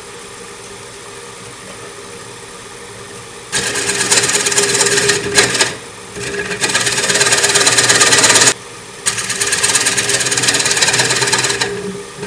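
Wood lathe running steadily, then about three and a half seconds in a turning scraper cuts into the centre of a spinning Jatoba (Brazilian cherry) disc. It makes loud, harsh scraping in three passes, each a couple of seconds long, with short pauses where only the lathe's running is heard.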